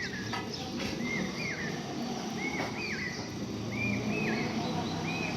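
A bird calling over and over in a steady rhythm. Each call is a quick pair of short, arched notes, and the pair repeats about every one and a half seconds.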